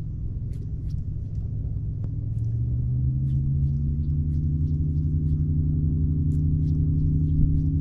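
A boat motor drones steadily, a low hum that rises slightly in pitch a couple of seconds in and grows louder.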